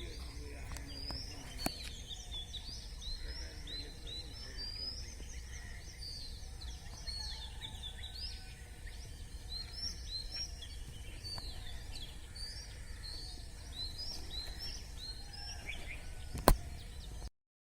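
Small birds chirping outdoors: many short, quick chirps that fall in pitch, over a low steady background. A sharp click near the end is the loudest sound.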